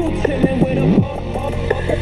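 Hip-hop background music with a heavy bass line and sliding synth tones over a steady beat.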